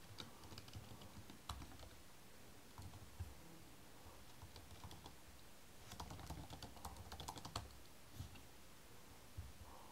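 Faint keystrokes on a computer keyboard, scattered clicks with a quick run of typing about six to seven and a half seconds in.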